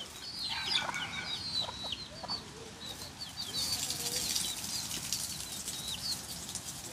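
Chickens calling close by: many short, high, falling peeps scattered throughout, with a few lower clucks.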